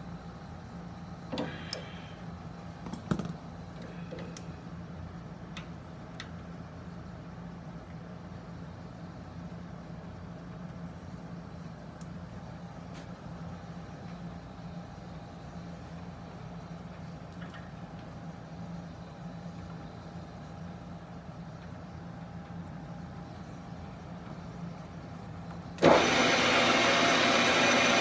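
A few sharp metal clicks of an adjustable wrench tightening a lathe tool post over a steady background hum, then near the end a metal lathe switches on with a sudden jump in noise and runs loudly and steadily.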